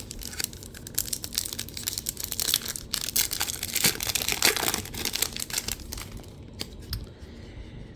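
Bowman Chrome trading cards being handled and flipped through, a dense run of rustling, crinkling and clicking that thins out near the end.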